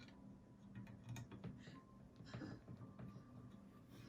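Faint scattered clicks and light knocks of box fan parts being handled during a blade swap, over a faint steady low hum.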